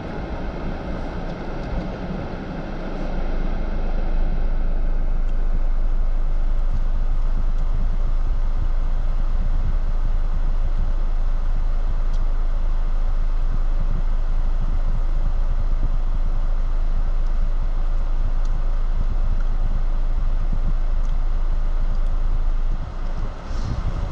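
4x4 vehicle driving off-road: a steady low rumble of engine and tyres that gets louder about four seconds in.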